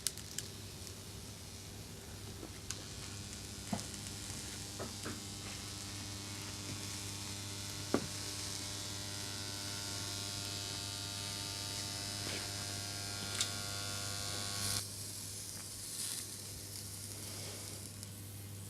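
Spot-welder transformer humming under heavy load, with thick copper cables shorted across its secondary; the overheating cable insulation sizzles and crackles. The sizzling hiss drops away about three quarters of the way through, while the hum carries on.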